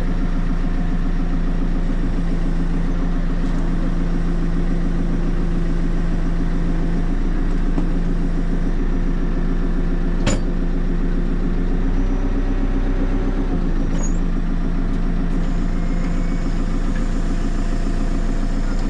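JCB 3CX backhoe loader's diesel engine running at a steady speed, with one sharp click about ten seconds in.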